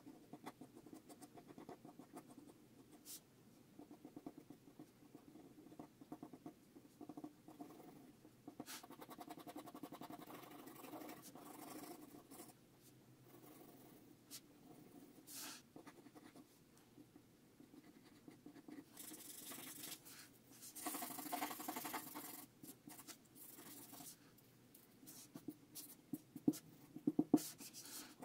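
Faint scratching of a mechanical pencil's lead on drawing paper as it sketches and shades in short, irregular strokes. About two-thirds of the way through there is a louder, denser stretch of quick strokes, and near the end there are a few sharper ticks.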